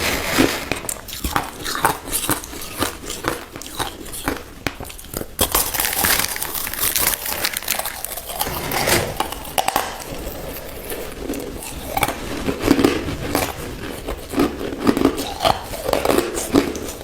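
Close-up crunching and chewing of crushed ice in the mouth: a dense, irregular run of sharp crackling crunches.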